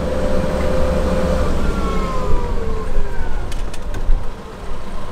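Forklift running close by, its engine a steady low rumble, with a held whine that gives way to whines dropping in pitch about two seconds in.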